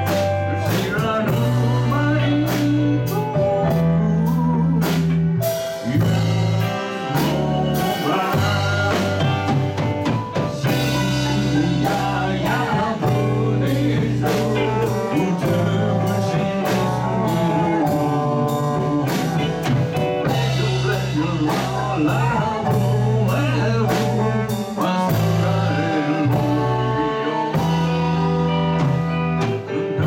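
Live rock band playing a song: men singing lead over electric guitars, electric bass and a drum kit, with keyboards and a percussionist shaking maracas.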